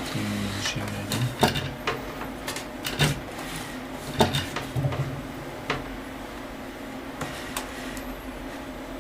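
Handling noise from cables and plugs: irregular clicks and knocks, bunched in the first six seconds and then sparser, over a steady low hum.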